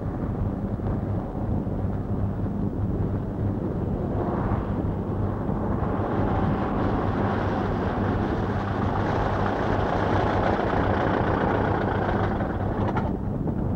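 A motor running with a steady low hum. A rushing noise swells in about four seconds in and cuts off abruptly near the end.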